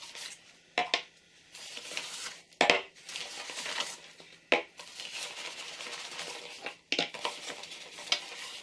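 Metal parts of a compact folding shovel (handle sections and a locking nut) being taken from a fabric carry bag and set down on a wooden tabletop: a handful of sharp knocks and clinks, with rustling of the bag in between.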